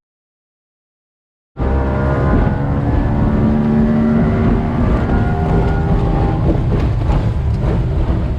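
Boat's outboard motor running steadily at speed, starting abruptly about a second and a half in after dead silence.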